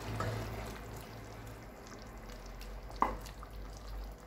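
Wooden spatula stirring thick chicken curry in a nonstick pot, scraping through the sauce, with one sharper clack about three seconds in. A steady low hum runs underneath.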